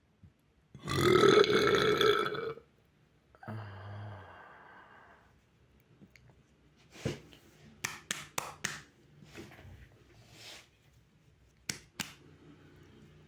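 A boy's long, loud burp lasting almost two seconds, brought up while drinking water, then a shorter, quieter, low second burp. Later come a scatter of sharp clicks and taps.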